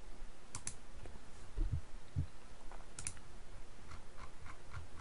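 Sharp computer clicks in two quick pairs, about half a second in and about three seconds in, with fainter ticks and soft low thumps between.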